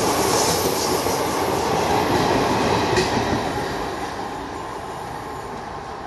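Coaches of an Indian Railways passenger express running through a station at speed, wheels rumbling and rattling on the rails. The sound fades steadily as the tail of the train draws away.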